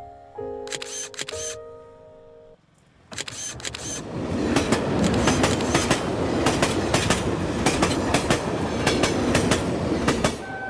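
A few music notes and camera shutter clicks, then from about three seconds in a passing train, its wheels clattering over the rail joints, loud until it eases near the end.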